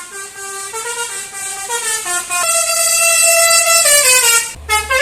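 Telolet musical air horn on a tour bus playing a tune: a run of short notes stepping up and down in pitch, then a long held note from about two and a half seconds that slides down near four seconds, a brief break, and more quick notes near the end.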